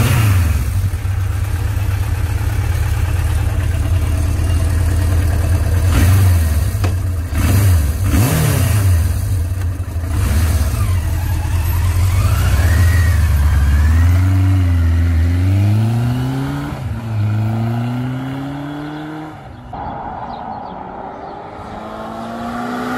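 Suzuki GS750's air-cooled inline-four engine idling just after starting, blipped a few times, then revving up and dropping with each gear change as the bike pulls away and fades. Near the end a motorcycle engine grows louder as it approaches.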